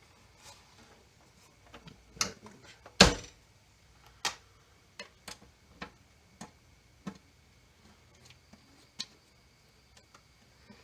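Scattered sharp clicks and clinks of small metal parts and tools being handled, about a dozen irregular knocks, the loudest about three seconds in.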